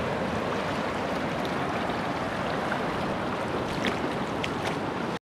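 Surf washing in over a flat sand beach: a steady hiss of shallow waves and foam, with a few faint ticks, which cuts off suddenly near the end.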